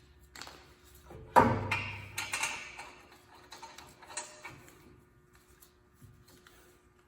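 Metal clinks and clanks of brake parts and tools being handled while the new caliper bolts are threaded in by hand. One louder ringing clank comes about a second and a half in, then lighter ticks fade out.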